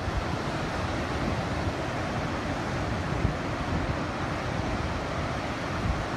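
Surf breaking on a sandy beach under typhoon swell, a steady wash of noise, with wind rumbling on the microphone.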